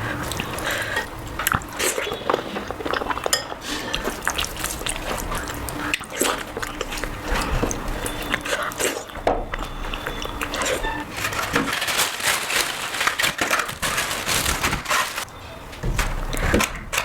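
Close-miked eating sounds: repeated wet chewing and smacking of curry and rice, with dishes and cutlery clinking, and some music underneath.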